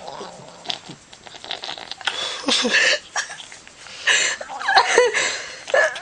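A cat making odd short vocal noises in separate bursts, about two seconds in and again around four to five seconds in.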